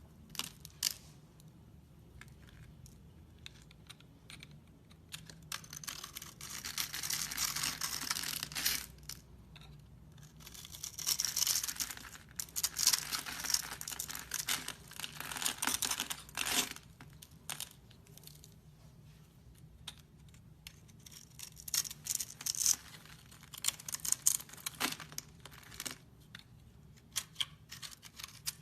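Knife cutting through soap: dry, crackly scraping and crumbling in several stretches of a few seconds each, with sharp clicks between them.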